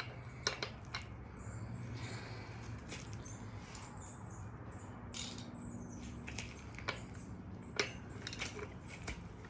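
Scattered light clicks and taps, about eight spread irregularly, from tools and parts being handled while working on a BMX bike, over a low steady hum.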